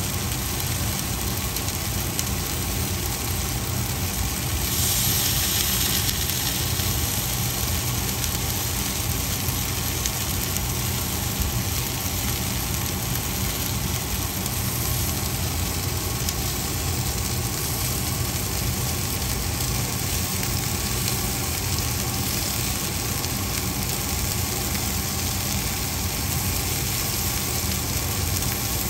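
A steady low mechanical hum with a hiss, like a fan or motor running, with a brief brighter hiss about five seconds in.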